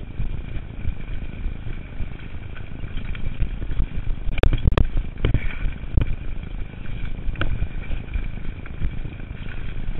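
Mountain bike descending a rough dirt trail at speed: a steady rumble of wind and rolling noise on the bike-mounted microphone. Sharp knocks and rattles come from the bike as it hits bumps, the loudest two about four and a half seconds in.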